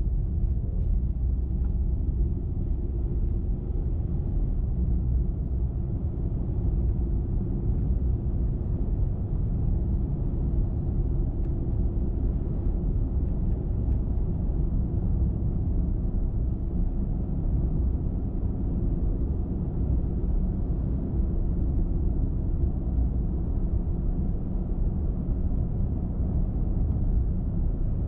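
Steady low rumble of a car travelling at highway speed: tyre and engine noise with no change in pace.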